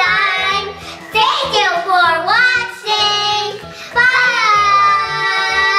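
Young girls singing in high voices over a backing of music with steady low notes, ending on one long held note.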